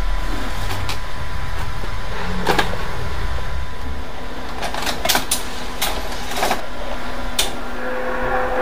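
Sony Betacam tape deck being loaded and started: a series of plastic clicks and clunks as a cassette slides into the slot and the transport buttons are pressed, over a steady hum.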